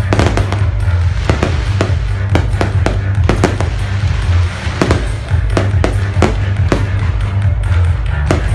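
Fireworks going off in quick, irregular bangs, several a second, over music with a heavy steady bass.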